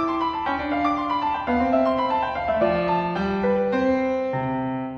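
Solo piano music, a gentle classical lullaby. The phrase closes on a low held chord about four seconds in, which begins to die away.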